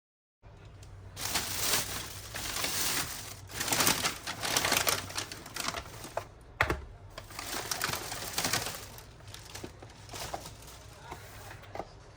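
Rustling and clattering handling noise, densest in the first few seconds, with a sharp click about six and a half seconds in and scattered lighter clicks after.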